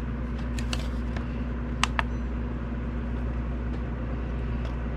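Steady low electrical hum in the room, with a few light clicks in two quick pairs, about half a second in and again about two seconds in, as small pieces of solder are handled and set on a scale for weighing.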